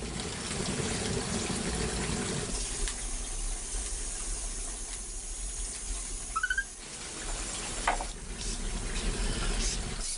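Water running and splashing steadily, with a short high squeak about six and a half seconds in.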